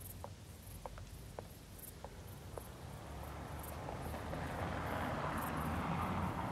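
Night street ambience: faint footsteps at a walking pace, about two a second, over high faint insect chirping. From about three seconds in, a rush of noise swells up, loudest near the end.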